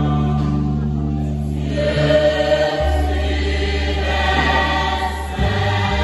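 Mixed choir of men's and women's voices singing a hymn in long held chords over a deep steady low note. The chord changes about three seconds in and again near the end.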